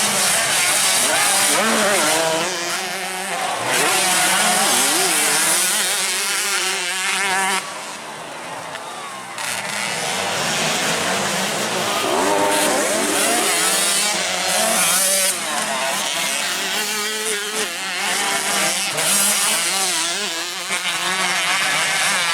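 Several racing dirt-bike engines revving up and down as they race round a grass track, the pitches climbing and falling with each gear change and corner. The engines go quieter for a second or two about a third of the way in, then pick up again.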